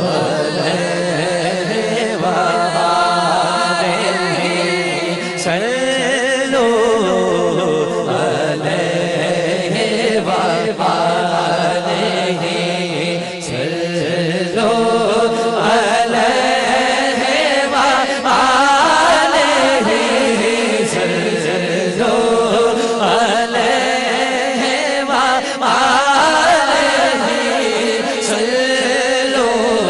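A man singing a naat into a microphone, drawing out long, wavering melodic phrases over a steady held drone, amplified through a sound system.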